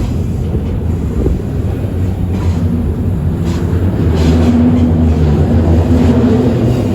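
Ferromex diesel train running past: a steady, heavy low rumble that grows louder about halfway through, with a few short clicks from the running gear.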